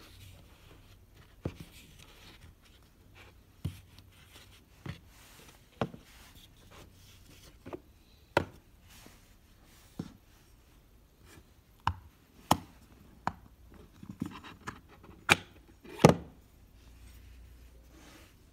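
Handling sounds from a Nomad Pod Apple Watch charger: about fifteen sharp clicks and knocks at irregular spacing as the pod is set down on a wooden desk and its metal shell is pried off the plastic base. The loudest knocks come a little after the middle, and the last one is slightly drawn out.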